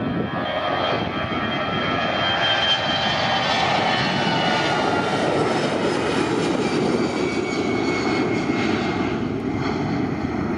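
Airbus A320 jet engines running at takeoff power through the takeoff roll and climb-out. A steady, loud rumble is overlaid by high whining tones that slowly fall in pitch as the airliner passes.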